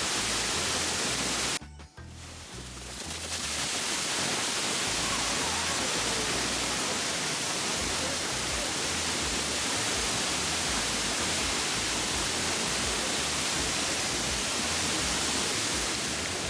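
La Fortuna waterfall pouring down: a steady, loud rush of falling water that drops away for a moment about two seconds in, then comes back.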